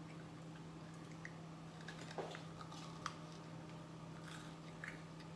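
Faint eating sounds as cookie ice-cream sandwiches are bitten and chewed: a handful of small clicks and smacks over a steady low hum.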